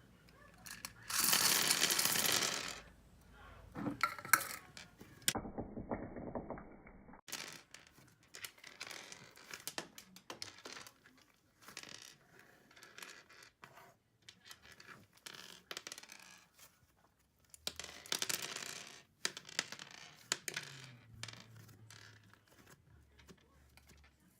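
Butter slime being worked by hand: a stream of short sticky crackles, pops and clicks as it is poked, stretched and folded. There are two louder rushing stretches, about a second in and again near 18 seconds.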